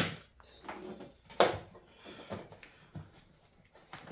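A handful of sharp clicks and knocks from the air filter housing being handled, the loudest right at the start and another about a second and a half later, with a few softer ones after.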